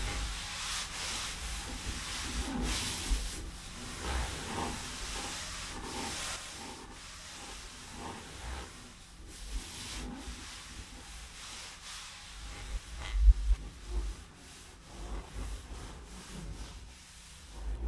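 Charcoal rubbing and scraping on a large sheet of paper in uneven strokes, with a few low thumps, the loudest about two-thirds of the way through.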